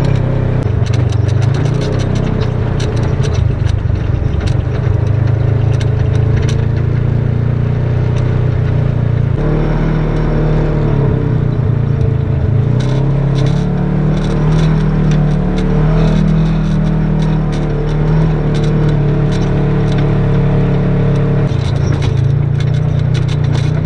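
Polaris RZR side-by-side's engine running as it drives over sandy dirt trails, its note rising and falling with the throttle, with many sharp clicks and rattles over it. The engine sound changes abruptly about ten seconds in and again near the end.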